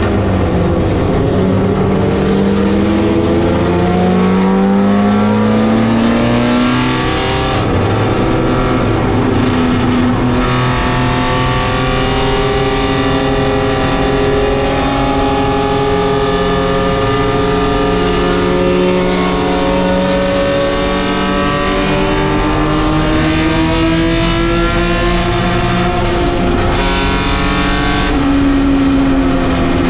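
Race car engine heard from inside the cockpit at full racing pace, its pitch climbing through each gear and dropping at upshifts a few times, with one long pull where the revs rise gradually.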